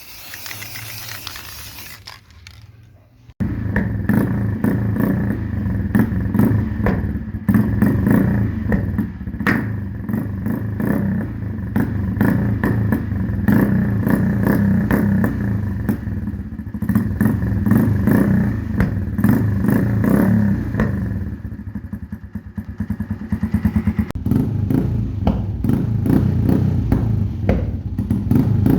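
A Honda CG125's single-cylinder four-stroke engine running through an aftermarket SC Project exhaust, blipped and revved repeatedly with sharp crackles and pops. It opens with a few seconds of hiss before a sudden cut to the engine.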